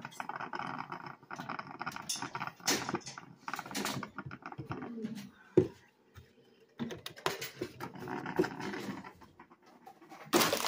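Handling noises from a coffee creamer box and a phone held in one hand: irregular rustling, scuffs and small knocks, with a sharp click about halfway through and a louder burst of rustling at the very end.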